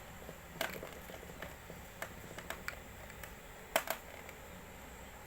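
Scattered light clicks and crinkles of a parcel and its packaging being handled, with a sharper pair of clicks a little before four seconds in.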